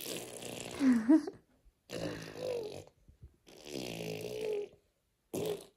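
A young child's wordless vocal sounds in four short stretches, the pitch sliding up and down.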